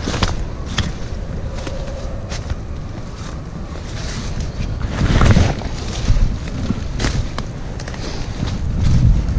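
Wind rumbling on the microphone, swelling about halfway through and again near the end, with scattered small clicks and snaps.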